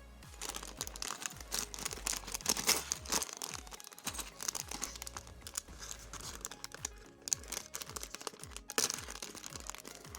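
Packaging being opened by hand: rapid, irregular crinkling and tearing of plastic wrapping around a model-kit toy, with soft background music underneath.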